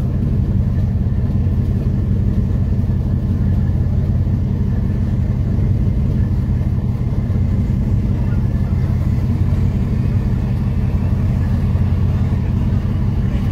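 Diesel engines of the fast passenger ferry MV Dumai Line 1 running as it gets under way, a steady low drone.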